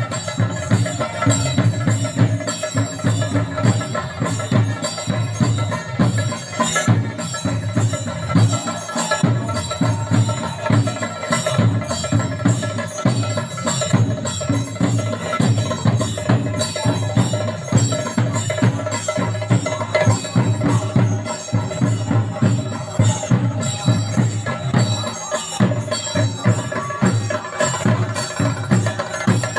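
Traditional Kerala temple procession music: drums struck in a fast, continuous rhythm with ringing metal percussion over steady held tones.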